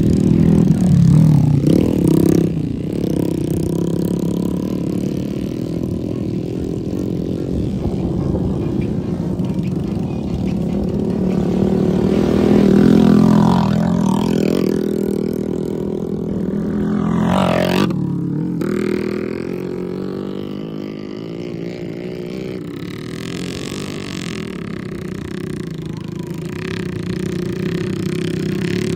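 Small motorcycle engines revving up and down under load as they haul sacks of unhulled rice through sticky mud, the pitch rising and falling, with the loudest swells about a second in and around the middle.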